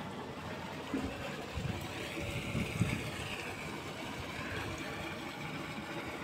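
Steady background hiss and hum with no clear source, with a few soft low thumps between about one and three seconds in.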